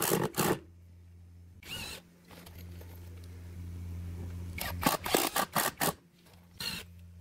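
A series of sharp clicks and knocks, a quick run of about six near the middle, as hardwood crown molding is fastened to a wooden column box, over a low steady hum.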